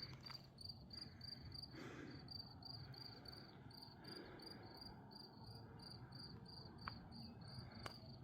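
Faint, steady chirping of insects in an even rhythm of about three chirps a second. A couple of light clicks come near the end.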